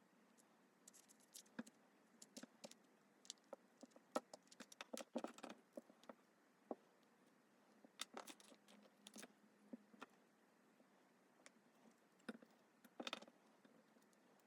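Faint, scattered small clicks and scrapes of hand repair tools working against a Samsung Galaxy Z Flip 4's glued back panel while it is pried loose, with clusters of quick ticks a few seconds apart and quiet between them.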